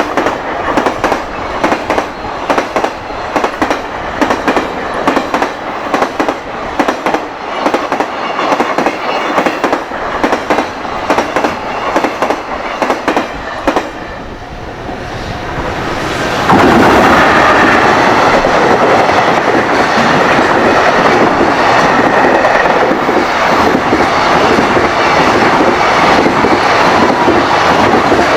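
Container wagons of a high-speed freight train rolling past at speed, the wheels clattering over the rail joints in a quick, regular clickety-clack. A bit over halfway through, the sound switches abruptly to a louder, steadier rumble of wheels on rail, with the joint clicks faint beneath it.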